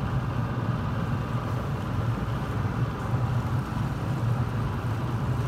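Boat engine running steadily, a constant low hum.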